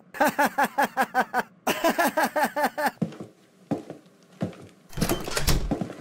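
A cartoon character laughing in quick, even bursts for about three seconds, with a short break in the middle. Then come a few soft knocks and a louder thump about five seconds in.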